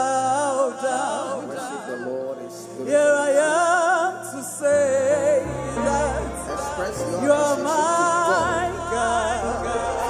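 Live gospel worship song: several singers hold long, wavering notes over a keyboard. A bass line comes in about halfway through.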